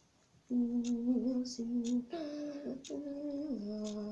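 A person humming a wordless tune in long held notes that step from pitch to pitch, starting about half a second in, with faint clicks from slime being kneaded in the hands.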